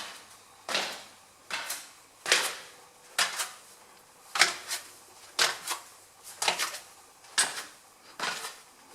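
Footsteps on a ceramic tile floor: a sharp tap with each step, evenly paced at a little over one step a second.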